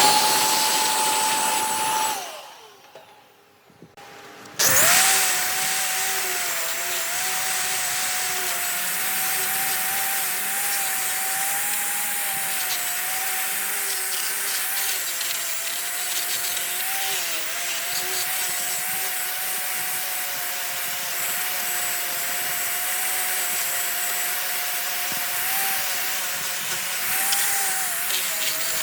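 Electric power tool working wood: it runs, winds down about two seconds in, then starts again nearly five seconds in and runs steadily, a high motor whine over a rough rasping hiss.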